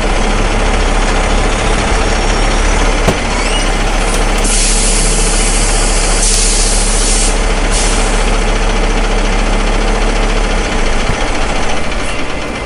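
Peterbilt semi-truck's diesel engine idling steadily, close up. Between about four and eight seconds in there are three bursts of compressed-air hiss from the truck's air brakes.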